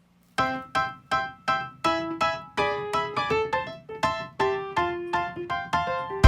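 Background music: a light piano or electric-piano tune of quick, short notes, starting about half a second in.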